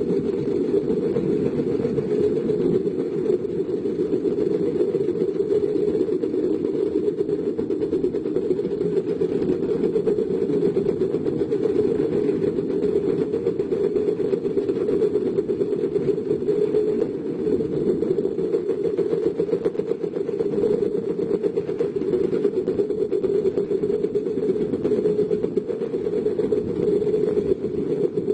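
Heavy diesel construction machinery running steadily, a low, continuous engine rumble with no pauses or changes.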